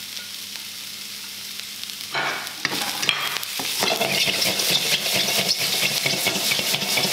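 Vegetables and mushrooms sizzling in a hot wok while being stirred and tossed. The sizzle grows louder about two seconds in, with rapid repeated scrapes and clatters of the stirring against the wok.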